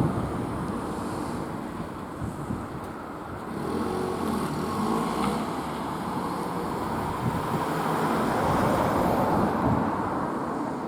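Road vehicles driving past. From about four seconds in, a nearer engine's hum grows louder and holds steady.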